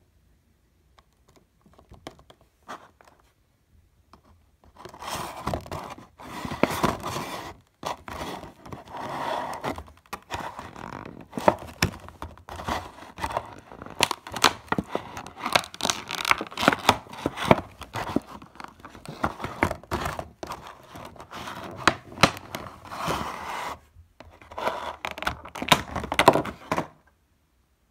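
Clear plastic packaging insert being handled and pried apart to free a vinyl figure: crinkling and crackling with many sharp clicks. It starts a few seconds in, pauses briefly twice, and stops just before the end.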